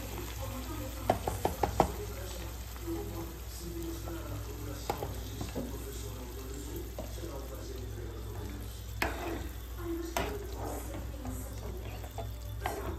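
Chicken pieces and cream sizzling in a pot on the stove while a metal spoon stirs, clinking against the pot in a quick run of taps about a second in and a few more later.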